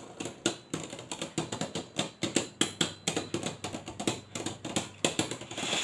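Two Beyblade Burst spinning tops rubbing and knocking against each other in a plastic stadium, their edges clacking in rapid, uneven clicks several times a second.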